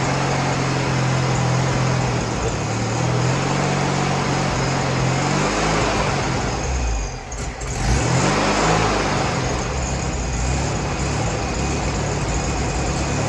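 Freshly rebuilt air-cooled VW Beetle 1641cc dual-port flat-four running steadily on its first start, revved up and back down a few times in the middle, with a brief drop about seven seconds in. It runs smoothly, with no ticks, taps or knocks.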